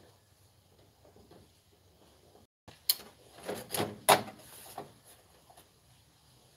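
Handling noise close to the microphone: cloth rubbing and a handful of short knocks and clicks from about three to five seconds in, the loudest a sharp knock a little after four seconds.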